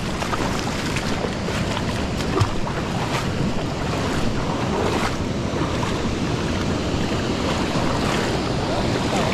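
Steady rush of the Feather River's fast current past bankside rocks, with wind buffeting the microphone.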